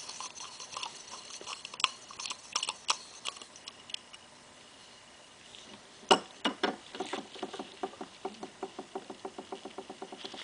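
Small clicks and taps of hand work on a Scotts steering damper as a bleeder nipple is taken off; about six seconds in, a sharp click starts a quick, even run of light ticks, about five a second.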